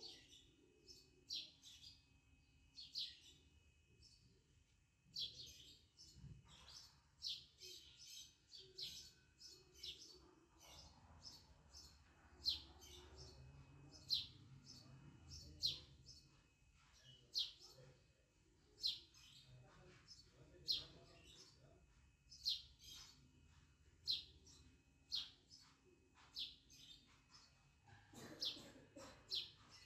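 Bird chirping repeatedly in the background: short, high chirps about every second and a half to two seconds, over faint low handling noise.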